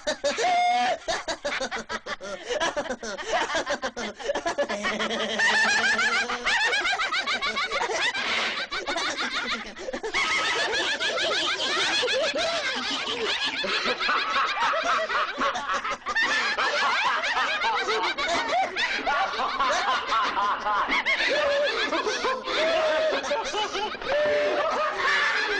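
Several voices laughing maniacally at once: overlapping rapid cackles and chuckles that keep up without a break.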